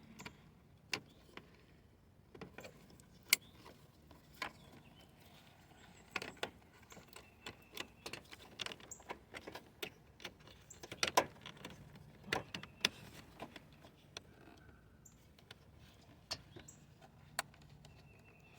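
Irregular light clicks, taps and rattles of a new engine wiring harness and its connectors being handled and fed into the engine bay, with a cluster of louder clicks about eleven to thirteen seconds in.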